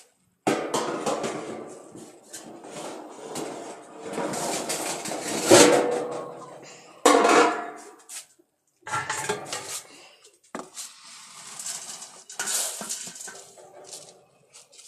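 Dry chicken feed poured and shaken into a container, rattling and clattering in several stretches broken by short pauses, with knocks from the container being handled.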